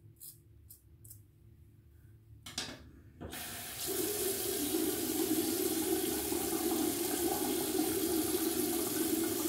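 Faint clicks, then water running steadily from a tap into a sink, starting about three seconds in.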